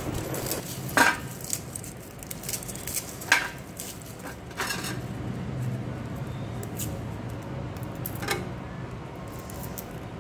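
Garlic cloves being peeled by hand with a small knife over a stainless steel tray: a few scattered clicks and taps of the knife and cloves against the metal, over a low steady hum.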